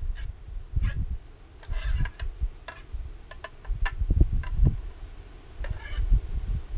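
A metal spoon clicking and scraping against a foil ration-pack pouch as food is eaten from it: irregular sharp clicks, about a dozen, over low buffeting rumbles on the microphone.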